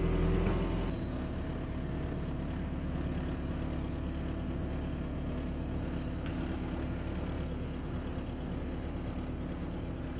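Volvo compact excavator's diesel engine running steadily. From about four and a half seconds in to about nine seconds a high electronic beep from the laser-level receiver on the grade rod comes in, quick beeps running into a held tone, the receiver's signal that the rod is at or near grade.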